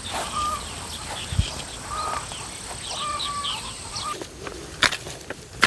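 Short repeated bird calls, about one a second, each a brief level note, mixed with higher chirps. A few sharp crunching clicks come near the end.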